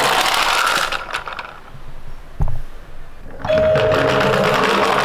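Toy minicar running with a dense whirring that stops about one and a half seconds in. A single knock follows, then the whirring starts again with a short steady electronic tone.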